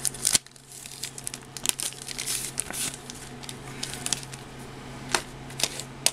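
Clear plastic bag crinkling and rustling in irregular crackles as a paper instruction manual is handled and pulled out of it.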